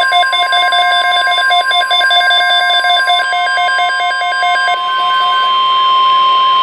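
NOAA Weather Radio alert: a loud, steady high tone of about 1 kHz, the 1050 Hz warning alarm tone, under a rapidly pulsing electronic alarm tone that stops about five seconds in, leaving the steady tone alone.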